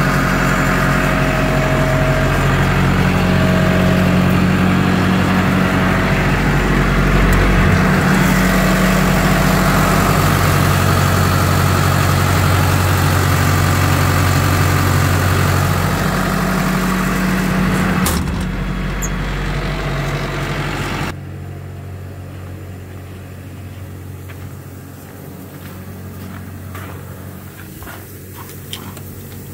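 Diesel engine of a drill rig and screw compressor set running steadily, then dropping and shutting off about two thirds of the way through. Afterwards only a much quieter steady sound remains, with a few light knocks.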